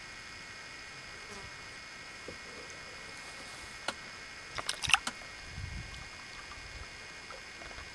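Steady high insect buzzing over calm water. About halfway through comes a short burst of sharp knocks, the paddle clattering against the plastic kayak, followed by a brief low rumble.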